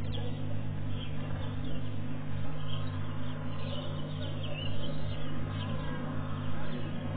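Bush ambience: scattered short bird chirps and calls over a steady low hum.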